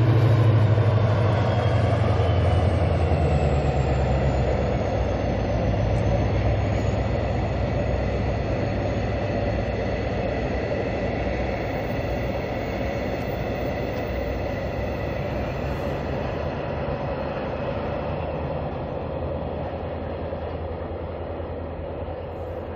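A diesel locomotive hauls a freight train of tank wagons past. Its engine's low drone is strongest at first, then the steady rumble of the wagons on the rails takes over, fading gradually as the train moves away.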